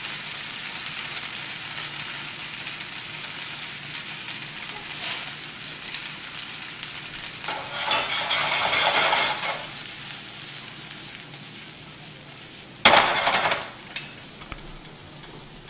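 Mushrooms and red onion sizzling as they sauté in a frying pan. The pan is stirred, louder for a second or so about halfway through, with a sudden short louder burst near the end.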